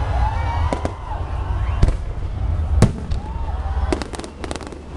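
Aerial fireworks bursting: sharp bangs at irregular intervals, the loudest nearly three seconds in and a quick run of pops near the end, over a steady low rumble.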